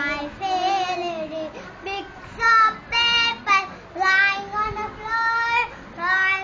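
A young boy singing unaccompanied, in phrases with long held notes and short breaks between them.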